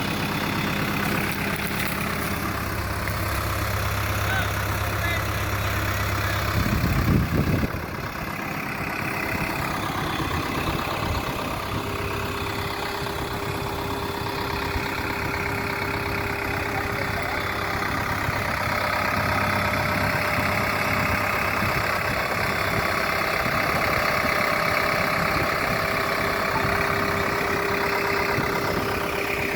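Diesel engine of a JCB 3DX backhoe loader running steadily, with a brief louder surge about seven seconds in.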